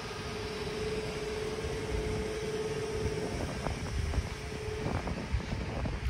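Norwegian El 18 electric locomotive heard at close range: a steady mid-pitched hum that stops about five seconds in, over a low rumble with wind on the microphone. There are a couple of faint clicks near the end.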